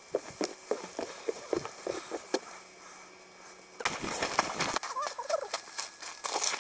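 Walking footsteps, about three a second, for the first couple of seconds; after a short lull, rustling and handling noise, then a brief call with gliding pitch about five seconds in.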